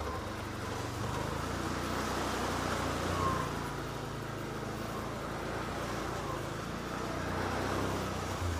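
2013 Can-Am Outlander 500 XT ATV's V-twin engine running as it rides a muddy trail, the engine sound swelling with the throttle twice, under a steady rush of wind and tyre noise.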